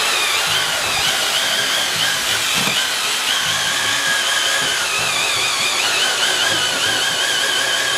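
Handheld electric drill with a mixing paddle, running steadily as it stirs liquid ice cream mix in a plastic bucket. Its high motor whine wavers in pitch under the load.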